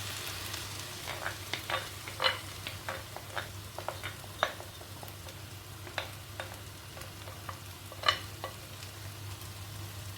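Salt cod, straw potatoes and beaten egg sizzling steadily in a frying pan, with scattered sharp clicks and taps of a utensil stirring against the pan, the loudest about two seconds in and about eight seconds in.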